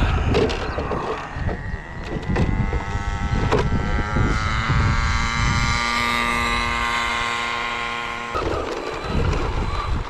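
Brushless electric motor of an Arrma Vendetta RC car, a 2200 kV motor on a 6S Arrma ESC, whining as it is throttled up. The pitch rises for a couple of seconds, holds steady, then cuts off abruptly about eight seconds in. Wind rumble on the microphone sits underneath.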